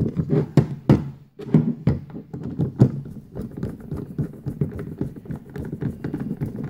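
Handheld multimeter being screwed back together: a screwdriver turning case screws into threaded inserts, with many small clicks, taps and knocks of plastic being handled and set on the bench.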